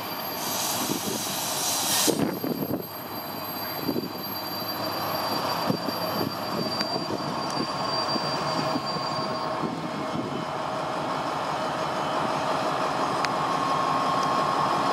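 Colas Rail Freight Class 70 diesel locomotive, its GE PowerHaul V16 engine running with a steady whine over wheel and rail noise, growing gradually louder as it draws slowly closer with a freight train. A short hiss comes in the first couple of seconds.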